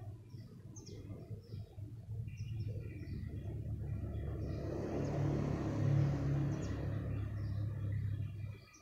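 A vehicle passing unseen: its rumble builds from about four seconds in, is loudest around six seconds, then eases off. Birds chirp over it.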